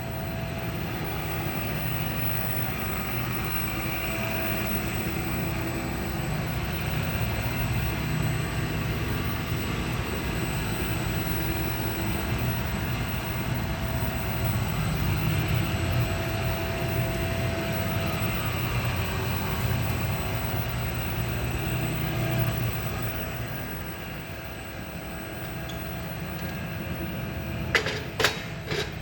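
K+G Wetter M 500 paddle mixer running steadily, a 6 kW electric machine, with a low hum and a steady whine. It eases a little after about three quarters of the way through, and a few sharp clicks come near the end.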